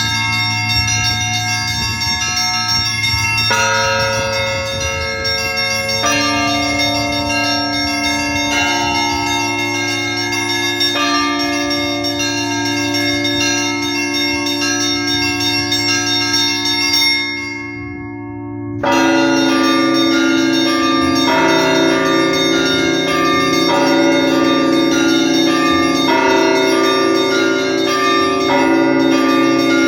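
Russian Orthodox church bells rung in a festal peal: many bells of different pitches ringing together in overlapping strokes. About two-thirds of the way through the peal briefly drops back, then returns at full strength with the bells struck in a quick repeating pattern.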